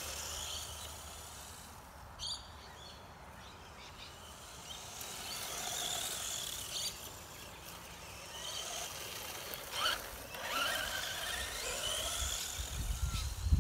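Electric motor and spur-gear drivetrain of a 1/10 RC buggy whining, rising in pitch each time it accelerates across grass, several times over, with a few short clicks between.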